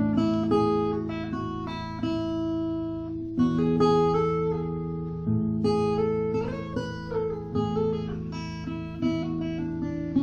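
Background music on acoustic guitar: plucked chords left ringing, changing every second or two.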